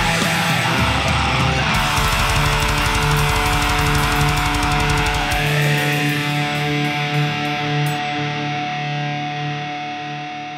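Black metal band playing electric guitars, bass and fast drums. About halfway through, the bass and drums stop and the song's final guitar chord rings on, slowly fading away.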